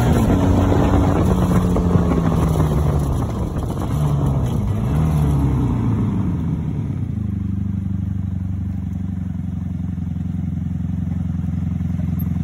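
Honda Magna VF750C's V4 engine, its note rising and falling under wind rush as the motorcycle slows through a bend, then settling about seven seconds in into a steady idle.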